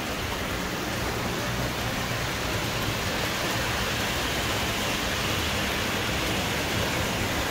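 Electric toy trains running on tinplate three-rail track, a steady rolling whir and rumble with a low steady hum beneath.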